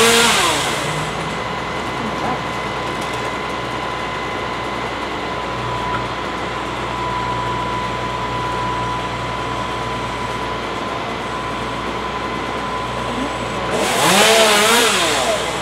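Husqvarna chainsaw revving up and dropping back twice, once at the start and again near the end, over a steady engine drone.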